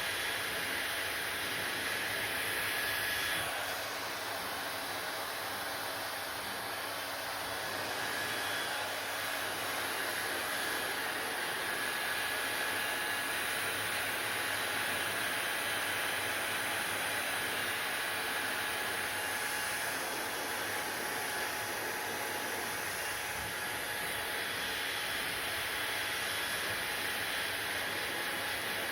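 Hair dryer running steadily: a constant rush of air with a faint high whine, dipping slightly in level about three and a half seconds in.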